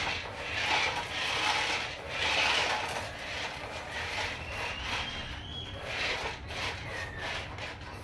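Huina RC dump truck's small electric drive motor and gearbox whirring in repeated surges as the truck drives and turns, with a short rising whine about halfway through.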